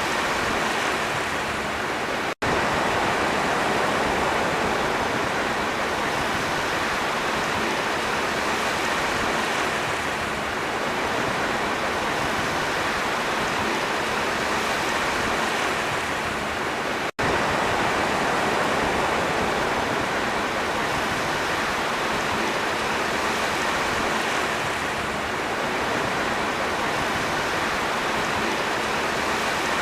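Sea waves and surf in a steady, continuous rush that swells gently now and then. It is broken by two split-second dropouts, about two seconds in and again about seventeen seconds in.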